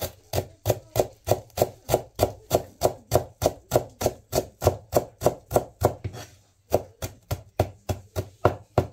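A kitchen knife chopping food on a cutting board, in an even rhythm of about three strokes a second, with a short pause about six seconds in before the chopping resumes.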